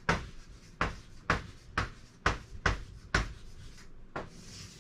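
A pen knocking on the writing surface as it writes: about eight sharp, irregular taps, roughly two a second, stopping a little before the end.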